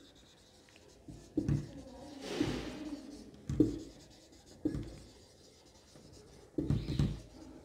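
Marker pen writing on a whiteboard: a handful of short strokes with pauses between them, the longest a drawn-out scratchy stroke about two and a half seconds in.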